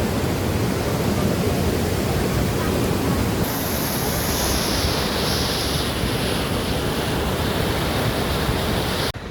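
Steady, loud rushing of a waterfall. The hiss brightens about three and a half seconds in, and the sound cuts off abruptly just before the end, as at an edit.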